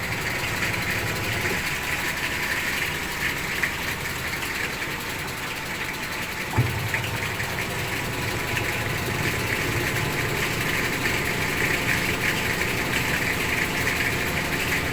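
Top-load washing machine running: a steady motor hum with a hissing, crackling noise above it. A single sharp click about six and a half seconds in, after which the hum grows stronger.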